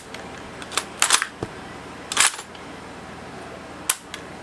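The bolt of a Marushin K98 gas airsoft rifle being worked, a handful of sharp metal clicks and clacks with the loudest about two seconds in, as the bolt is cycled to eject a brass shell casing.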